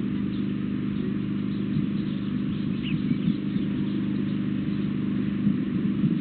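A steady, low engine hum that holds an even pitch throughout.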